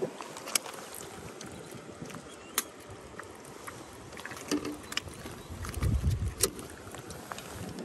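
Water lapping against a small boat's hull, with a few scattered sharp clicks and a brief low rumble about six seconds in.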